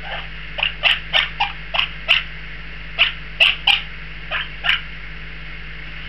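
Baby monk parakeets (Quaker parrots) giving short, repeated begging calls, about a dozen brief squawks in irregular clusters.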